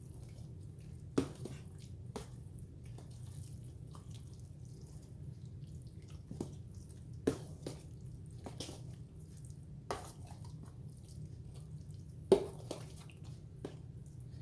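A spoon working through a thick, wet cornbread dressing mix in a pan, with scattered soft squelches and clicks, about seven in all, over a steady low hum.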